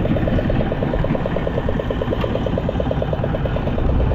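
A small fishing boat's motor running steadily underway, with a fast, even beat, over wind and water splashing against the hull.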